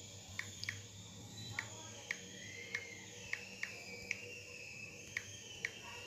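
Key-press clicks of a smartphone's on-screen keyboard as a word is typed: about a dozen short, sharp ticks at an uneven typing pace, over a faint steady hiss.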